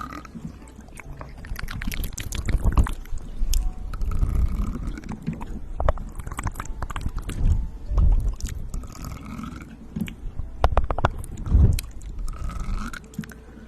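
Close-miked ASMR mouth sounds: irregular wet clicks and smacks of the lips and tongue.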